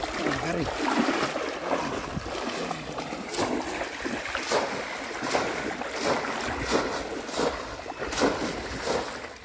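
River water splashing and sloshing in a run of short, uneven splashes, with wind buffeting the microphone.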